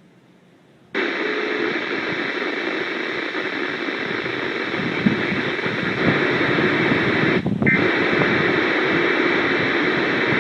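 Radioshack 12-996 weather radio's speaker hissing with loud static. It opens suddenly about a second in and drops out briefly about seven and a half seconds in, with no alert tones or voice in it.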